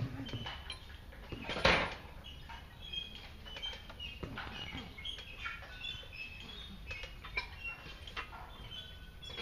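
Open-air gym ambience: iron machines and weight plates clinking now and then, among scattered short high chirps, with one louder clatter about two seconds in.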